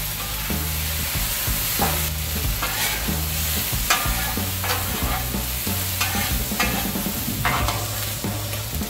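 Diced potatoes sizzling on a Blackstone flat-top steel griddle while a metal spatula scrapes and tosses them, in repeated scraping strokes about once a second over a steady frying hiss.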